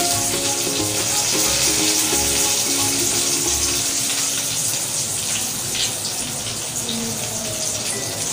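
Background music over a steady hiss. Its melody is clearest in the first few seconds, then fades back into the hiss.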